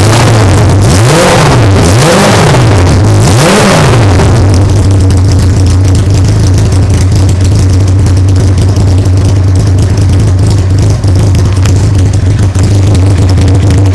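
Honda CBR900RR Fireblade's inline-four engine revved in three quick throttle blips, each rising and falling, then settling to a steady idle about four seconds in. Very loud.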